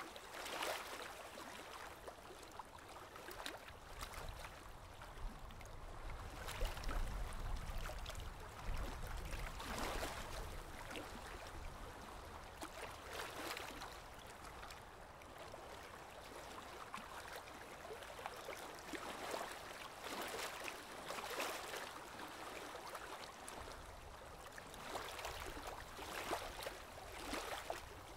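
Aquarium water trickling and bubbling, rising and falling in uneven swells every second or two.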